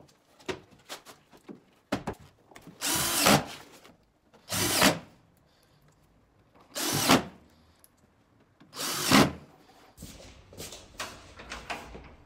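Cordless drill-driver running in four short bursts about two seconds apart, driving screws to fix the drywall sheathing, with small clicks and knocks from handling in between.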